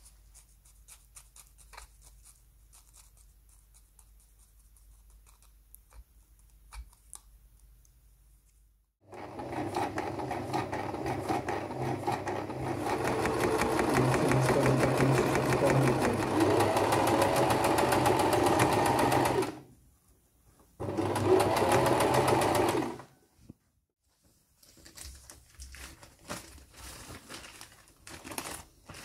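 Electric household sewing machine stitching through a leather strap: it starts about a third of the way in, runs steadily for about ten seconds, stops, then runs again for about two seconds.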